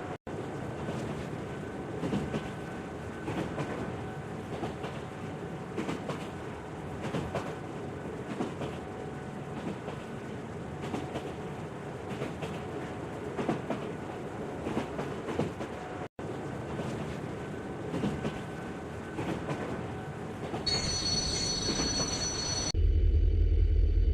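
Train running on a track, a steady rolling clatter with faint wheel squeal. Near the end it gives way to a different sound with high steady tones, then a loud low hum.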